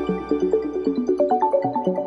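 A phone ringtone tune played as a quick melody of short pitched notes stepping up and down.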